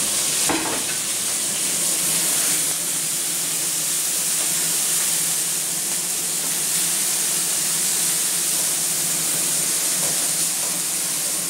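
Chicken searing on a hot stovetop griddle: a steady, loud sizzling hiss of fat frying, with a light knock about half a second in.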